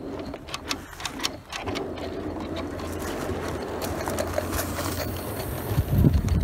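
Gauge 1 live-steam J65 tank locomotive and its train approaching on garden track. Sharp clicks give way to a rolling rumble that grows steadily louder, with a loud clatter near the end as the engine draws close.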